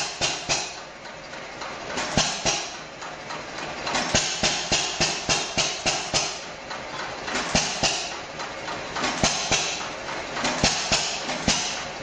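Hit-and-miss stationary engine running: a steady beat of sharp knocks, about three a second, in runs of louder firing strokes with softer stretches in between as the engine coasts without firing.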